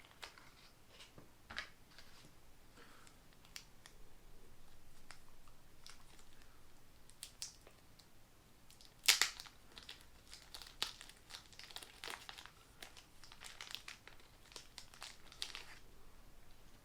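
Packaging crinkling and rustling as it is handled and unwrapped, in scattered crackles: one sharp crackle about halfway through, then a busier run of crackling.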